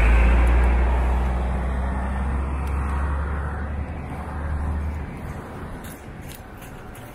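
A motor vehicle's engine running close by on the street, a deep rumble that fades and drops away about five seconds in, leaving lighter traffic noise. A few faint clinks come near the end.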